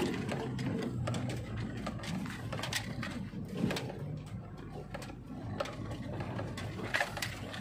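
Inside a car driving over a rutted dirt track: a low engine hum with frequent small clicks and rattles from the cabin as the car bumps along.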